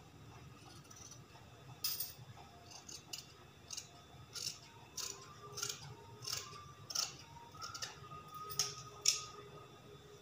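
Fabric scissors snipping through cloth, about a dozen short crisp cuts roughly half a second to a second apart, while a curved neckline and shoulder are cut out of a garment piece.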